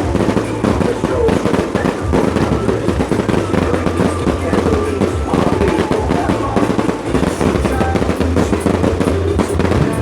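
Fireworks going off in a dense, continuous crackle of rapid bangs and pops, mixed with loud music that carries a steady low bass.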